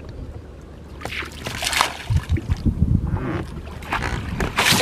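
A hooked fish splashes and thrashes at the water's surface as it is hauled up on a line against the boat's side, with a run of splashes and low thumps. A steady low engine hum runs underneath at first.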